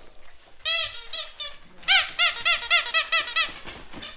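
A dog's squeaky toy squeaked rapidly over and over as it is chewed: a short run of about five squeaks about half a second in, then a longer run of about ten from about two seconds in.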